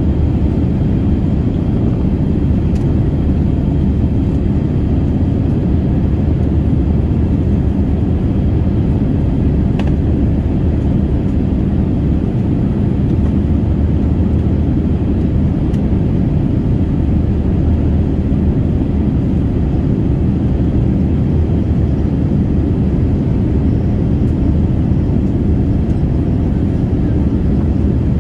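Airliner cabin noise heard from a passenger seat: a steady, even low roar of engines and airflow.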